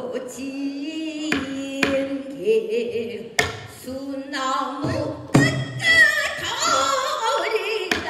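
Female pansori singer singing a long, wavering, ornamented vocal line, accompanied by several sharp strokes at uneven intervals on the buk barrel drum.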